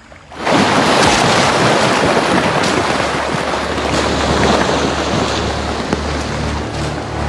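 Sudden loud splash about half a second in, then sustained heavy splashing and churning water as a Nile crocodile lunges at wildebeest at the water's edge.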